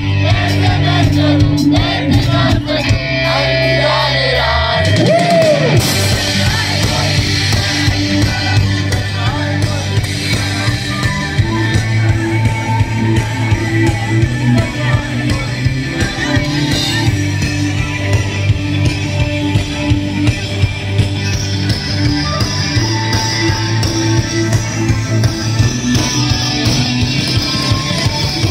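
A live band playing an amplified rock-pop song with a steady drum beat and singing, heard from among the audience, with shouts from the crowd.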